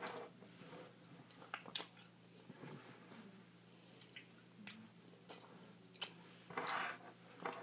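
A child chewing a chewy gummy candy close to the microphone: faint, irregular wet mouth clicks and smacks.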